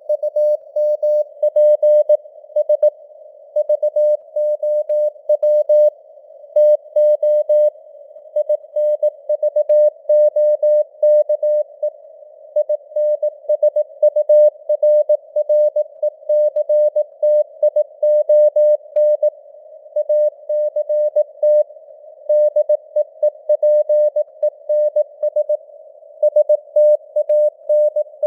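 Computer-generated Morse code at 18 words per minute: a single pitched tone keyed on and off in dots and dashes, over a narrow band of simulated radio-noise hiss.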